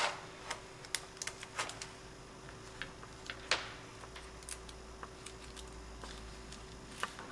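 A few small, sharp clicks and crinkles of hands handling a plastic-backed strip of glue dots and a small paper rose, spaced irregularly, over a faint steady hum.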